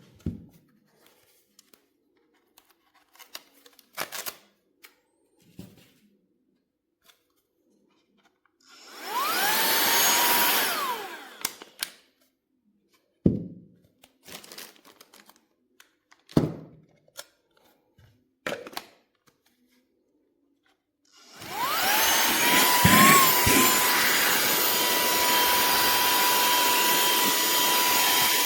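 SERVOMASTER cordless handheld vacuum switched on and its motor whines up in pitch, runs a couple of seconds and winds down. Later it is switched on again and runs steadily with a high whine. Scattered clicks and knocks of the vacuum being handled come in between.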